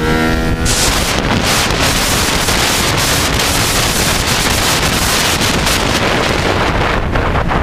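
Heavy wind buffeting on the microphone of a camera mounted on a racing motorcycle at speed, with the bike's engine running underneath. Just after the start, a steady engine note with several overtones stands out for under a second.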